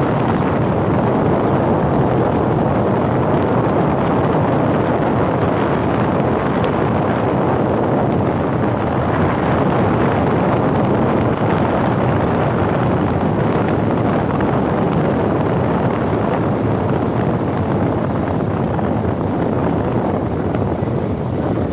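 Heavy diesel engine of a tractor or backhoe loader running steadily under the machine's work, an even, dense engine noise with no revving peaks.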